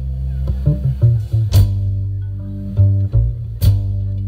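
Live folk band playing an instrumental passage with no singing. A deep upright bass line carries it under strings and drums, with a sharp drum-and-cymbal hit about a second and a half in and again near the end.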